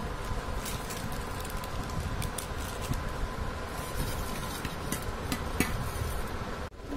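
Stainless steel bowls of corn puffs handled on a tabletop: scattered light clinks and taps over a steady low rumble.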